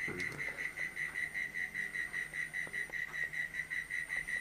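A high chirping call pulsing about five times a second, steady and even, with a few faint clicks among it.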